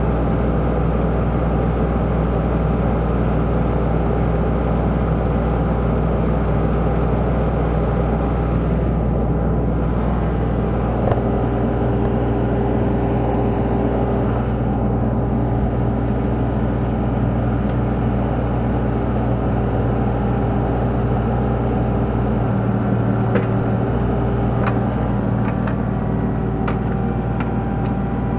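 Kubota KX91-3 mini excavator's three-cylinder diesel engine running steadily at idle, with a few light clicks near the end.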